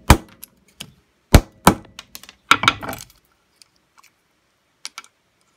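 A small black plastic rocker switch, taken from a power strip and heat-damaged, being forced apart by hand. Its housing gives several sharp cracks and snaps over the first three seconds, then a few faint ticks as the parts come loose.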